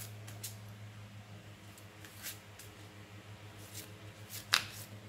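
Oracle card deck being shuffled by hand: a few soft card slaps and swishes, with a sharper card snap about four and a half seconds in, over a low steady hum.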